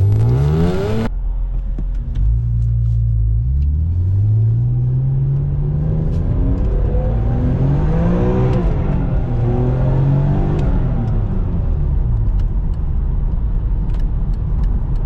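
BMW E46 M3's straight-six engine accelerating: a quick rise in pitch at the start, then a long steady climb for several seconds that peaks about eight seconds in and falls away as it eases off, leaving a steady running drone.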